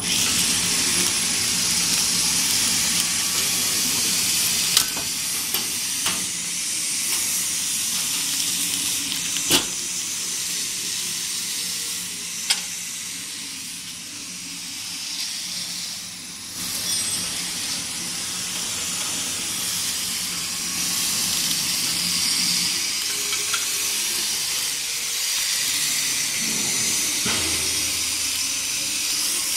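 GETRA spoon-wrapping machine running while it seals plastic spoons in film: a steady hiss over a low motor hum, with a few sharp clicks.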